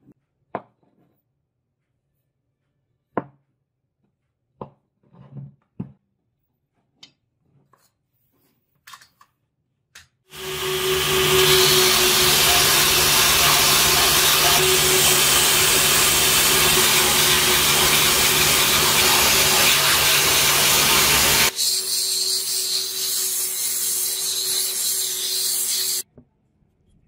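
Belt sander running with a wooden block pressed against the abrasive belt: a loud, steady grinding over the motor's hum. It starts about a third of the way in, thins out about three-quarters through, and cuts off suddenly near the end. Before it come a few light knocks of the wood being handled.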